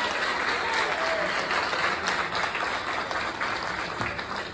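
Audience applauding, a steady clapping that thins out and fades near the end.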